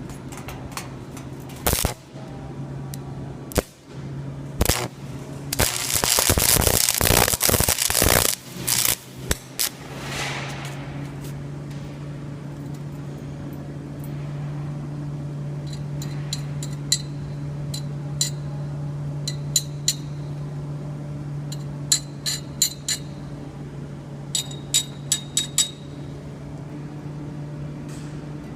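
Stick (arc) welder set to about 120 amps striking and running a bead: the arc crackles and spits in dense bursts for about the first ten seconds, loudest midway through. After that the machine's steady low hum carries on, with scattered sharp metallic clicks.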